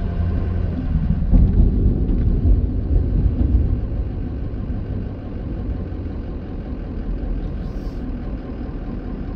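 Truck engine running and low rumble heard from inside the cab as the truck rolls slowly forward, easing a little quieter about halfway through.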